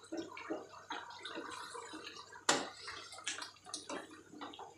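Wooden spatula stirring watery chicken curry in a metal pot, with scattered small clicks and knocks against the pan and the gravy bubbling on high flame as its water cooks off. One sharper knock comes about two and a half seconds in.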